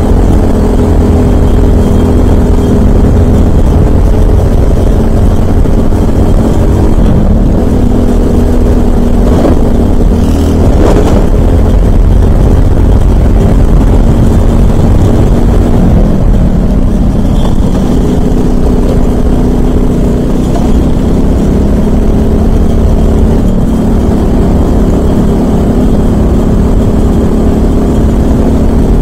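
Briggs & Stratton LO206 single-cylinder four-stroke kart engine running hard under race load, its pitch dropping twice as the revs fall and then climbing again, with heavy wind rumble on the onboard microphone.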